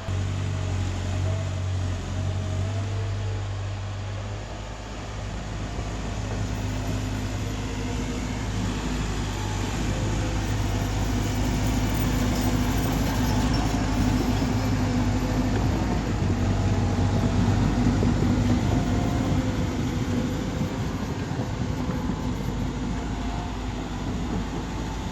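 Excavator's diesel engine running with a steady low hum and rumble, growing a little louder about six seconds in.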